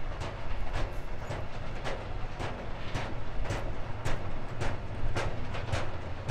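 Freight train of hopper wagons rolling past, the wheels clacking over the rail joints about twice a second at an uneven beat over a steady low rumble.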